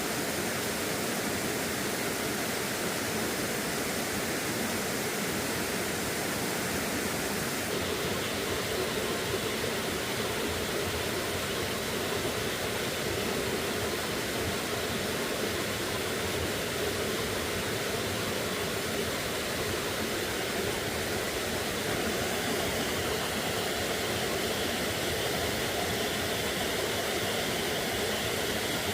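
Steady rush of flowing stream water, an even noise with no distinct events, changing slightly in tone about eight seconds in and again near the end.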